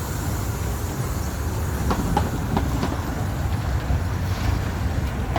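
A 15-inch gauge miniature railway train rolling into a station: a steady low rumble with irregular clicks of the wheels going over rail joints.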